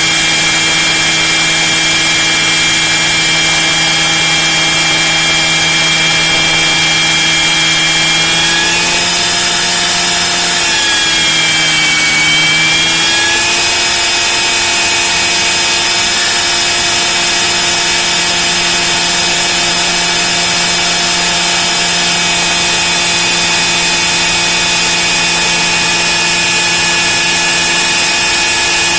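Radio-controlled model helicopter's drive whining steadily, heard from inside the fuselage. About eight seconds in, the pitch sags briefly and climbs back to its steady note a few seconds later.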